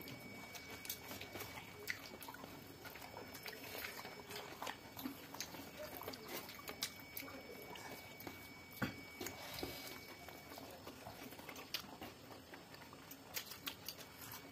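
Close-up eating sounds: chewing and mouth noises, with scattered small clicks and taps as fingers mix rice and vegetables on a steel plate.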